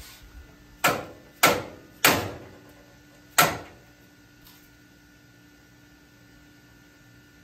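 Four heavy hammer blows on the steel front of a car chassis, three in quick succession about half a second apart and a fourth a second later, with the metal ringing faintly after them. The blows are meant to knock the front frame over about half an inch to centre it.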